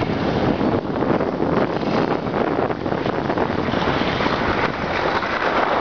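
Steady rush of wind on the microphone of a camera moving downhill on a ski slope, mixed with the hiss of sliding on snow.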